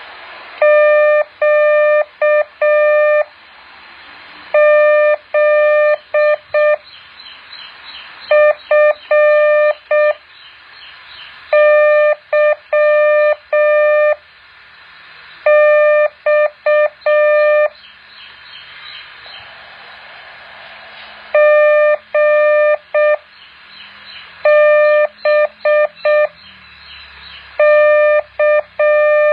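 Morse code practice tone, a steady beep near 600 Hz keyed on and off in dots and dashes, sent as eight separate groups a few seconds apart, with a faint hiss between them.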